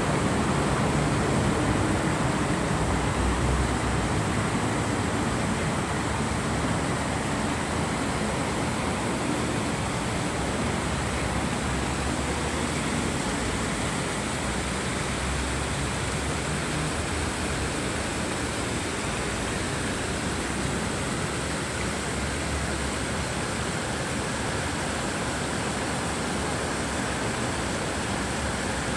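Water cascading down a stepped brick wall fountain and splashing onto the stone below, a steady rushing splash.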